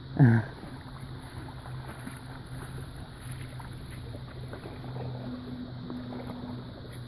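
A short cry right at the start, then a steady low motor hum running on.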